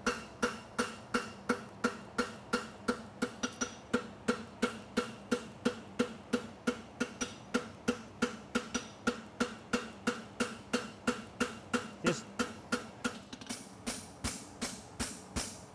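Farrier's hammer striking a red-hot steel horseshoe on the anvil, about three blows a second in a steady rhythm, each blow followed by a short metallic ring from the anvil. The blows are shaping the branch of the shoe.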